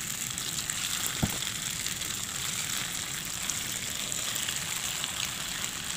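Soya chaap pieces sizzling as they shallow-fry in hot oil in a pan, a steady crackling hiss as more pieces go in. A single soft low thump about a second in.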